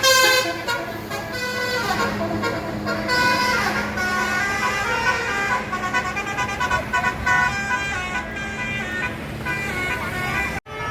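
Indonesian bus's basuri telolet horn playing a tune of held notes that step up and down in pitch, over the bus's running engine. The sound drops out abruptly near the end.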